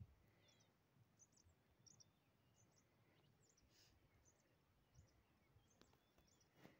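Near silence: faint open-air ambience with scattered faint, high bird chirps.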